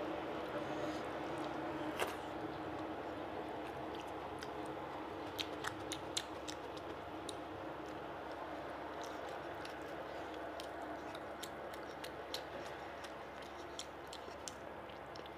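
Close-miked chewing of rice and fish curry, with wet squishing and many small clicks as a hand mashes and mixes rice into the curry on the plate.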